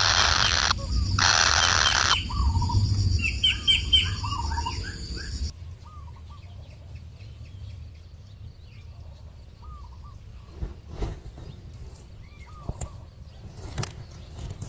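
Small birds chirping in short, rising-and-falling chirps, after two loud harsh bursts in the first two seconds. About five and a half seconds in, the sound drops much quieter, leaving scattered chirps and a few clicks.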